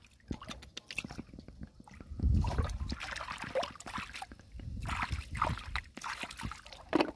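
Splashing and sloshing in shallow water and wet mud, in irregular bursts with scattered short clicks, the biggest splash about two seconds in: someone groping through the muddy lake bottom for clams.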